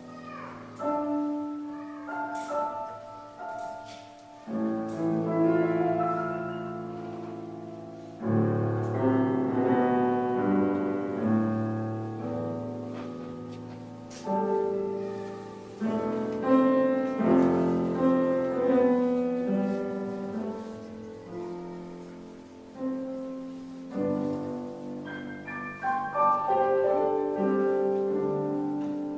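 Slow classical orchestral music led by piano chords. Each chord is struck and left to die away, with a new one every second or few.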